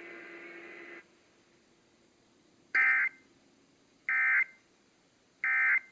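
Emergency Alert System End of Message signal: three short, shrill bursts of digital data tones, about a second and a half apart, sent over broadcast radio to close a Required Monthly Test.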